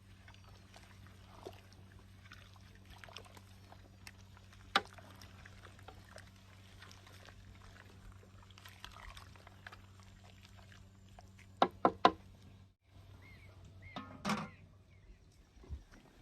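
Kitchen preparation sounds: liquid being poured, with a sharp clink about five seconds in and three quick clinks near twelve seconds, over a steady low electrical hum.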